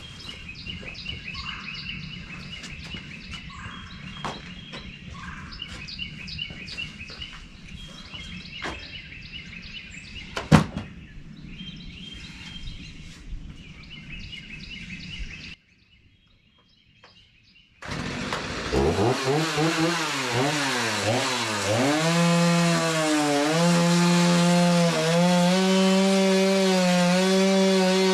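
Birds chirping over outdoor ambience, with one sharp knock about ten seconds in. After a brief gap, a gas chainsaw starts about two-thirds of the way through. It revs up and down, then holds a steady high running note.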